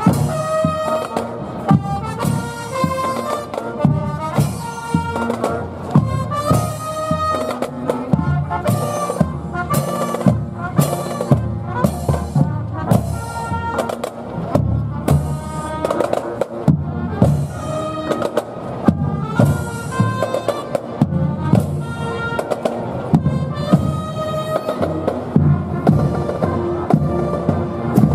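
A marching band playing a tune over a steady drum beat, with strong beats about two a second.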